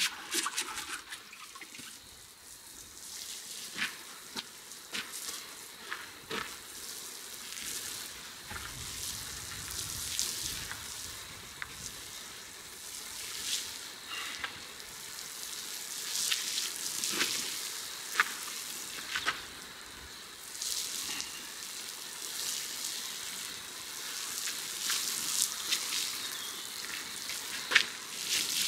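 Water pouring from a plastic watering can and spattering onto soil and young seedlings: a steady spattering with many small splashes.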